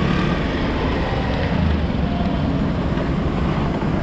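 Steady low rumble of slow, congested city traffic heard from a riding scooter, with the Suzuki Access 125's engine running and some wind on the action camera's microphone.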